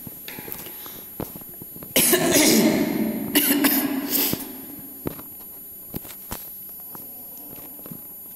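A person coughing: a hard cough about two seconds in, then two shorter coughs over the next two seconds, followed by a few faint ticks.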